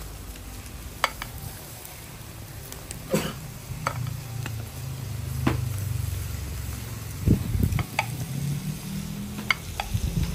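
Pork ribs sizzling on a grill as they are brushed with barbecue sauce, with scattered sharp pops and clicks and a couple of dull thumps about seven seconds in.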